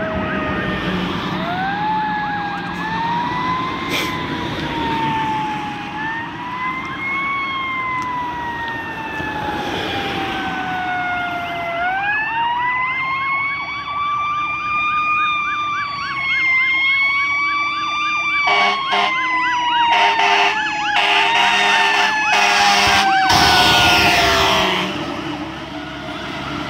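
Fire truck siren wailing, its pitch sweeping up sharply and sagging slowly again and again. Near the end, as the truck comes close, a quick series of horn blasts sounds over it.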